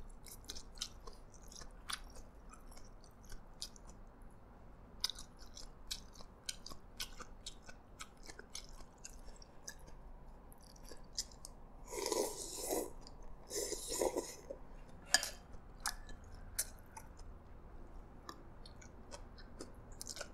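Close-up eating sounds from noodle soup: chewing with many small wet mouth clicks, and two louder slurps about twelve and fourteen seconds in, as noodles are drawn into the mouth.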